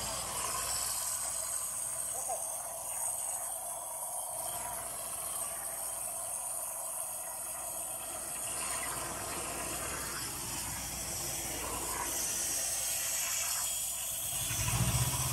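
Hose-fed cement plaster spray gun hissing steadily as wet cement is sprayed onto wire lath. A low hum grows louder near the end.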